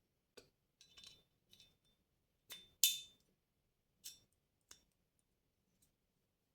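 Small metal Glock 34 Gen 5 pistol parts clicking and clinking as they are handled and fitted together, a string of about eight separate sharp clicks, the loudest about three seconds in.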